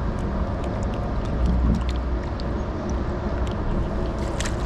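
Steady low rumble of wind and sea noise on the microphone, with scattered faint clicks.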